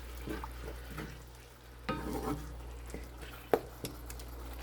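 Ground chicken sizzling in a pot with a little added water while it is stirred with a utensil, with a few scrapes and a sharp clink against the pot about three and a half seconds in.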